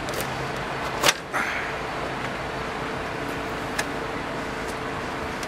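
A sharp plastic click about a second in as the Scania R440's headlight unit is pulled free of its mount and swings open, followed by a brief scrape and a smaller click later. Steady background hum underneath.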